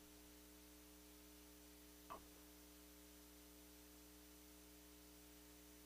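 Near silence: a faint steady electrical hum from the sound system, with one faint short sound about two seconds in.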